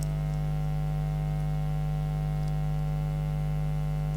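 Steady electrical mains hum: a constant low drone with a stack of even, unchanging tones above it.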